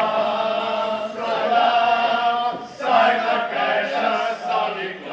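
A group of men chanting in unison on long held notes, in two phrases with a short break between them.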